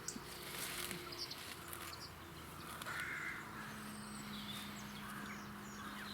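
Crows cawing now and then, a few short harsh calls, with small birds chirping faintly.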